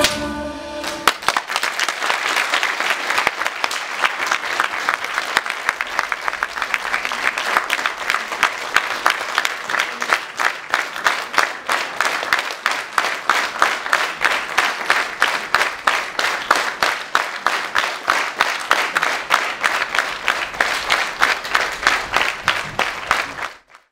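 The last notes of the dance music on fiddle and guitar, then an audience clapping. About halfway through, the applause settles into rhythmic clapping in time, and it cuts off just before the end.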